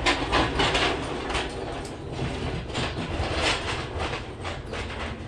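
Fabric rustling and brushing in quick irregular strokes as hands gather and stitch smocked fabric close to the microphone, over a steady low hum.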